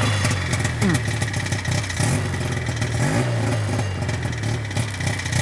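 Snowmobile engine running steadily under way, its pitch rising briefly a few times.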